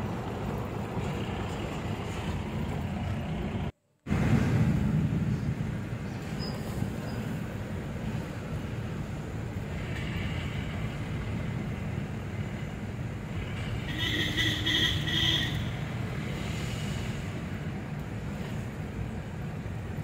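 Steady low rumble of a car driving along a road. The sound drops out briefly about four seconds in, and a short, pulsing high tone sounds for about a second and a half about fourteen seconds in.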